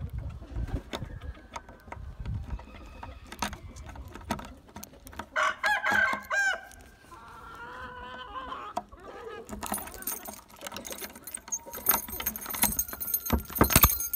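A rooster crows once about halfway through, with chickens clucking. Around it come sharp metallic clicks and rattles of a key being worked in a padlock on a door hasp, thickest in the last few seconds.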